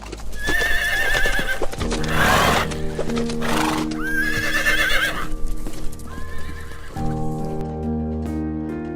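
Three high, wavering whinny-like animal calls, with two loud breathy rushes of noise between the first and second. Background music with sustained notes comes in about two seconds in and carries on after the calls.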